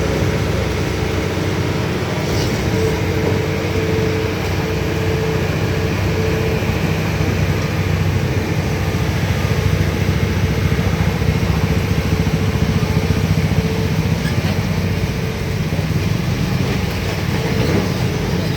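Heavy truck engine running steadily close by, a little louder about halfway through.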